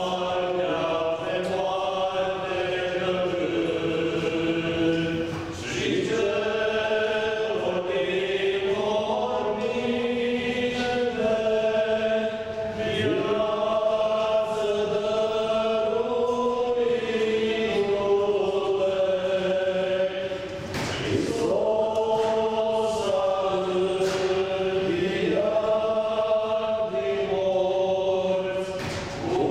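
Choir chanting an Orthodox Easter hymn in long melodic phrases, with a short pause for breath every seven or eight seconds.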